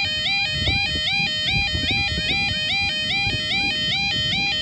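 Level crossing audible warning alarm sounding: an electronic two-tone yodel that steps between a low and a high note about two and a half times a second, over a low rumbling noise.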